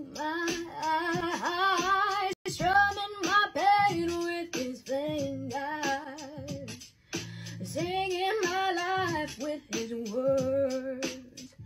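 A young woman singing solo, a slow melody of long held notes with vibrato, with brief breaks about two and a half and seven seconds in.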